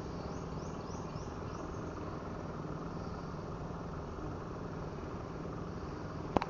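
Steady low hum of a distant motor running, with insects chirping during the first two seconds and a couple of sharp knocks near the end.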